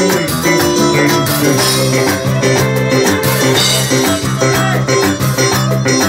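Live band playing an upbeat number: acoustic drum kit and electric guitar with a steady beat.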